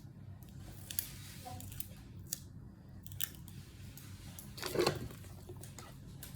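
Small craft pieces being handled: scattered light clicks and taps, with a louder rustle about five seconds in.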